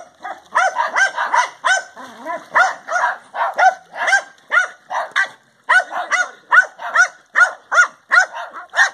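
A dog barking repeatedly in quick, high-pitched yaps, about three a second, with a short pause a little past halfway.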